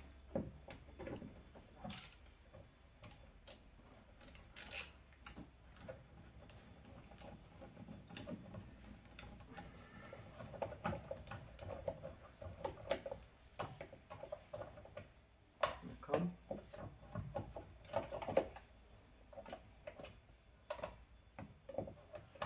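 Scattered light clicks and taps of a hex (Allen) key turning out a screw on a car's door trim panel, with a run of louder clicks and knocks about two-thirds of the way through.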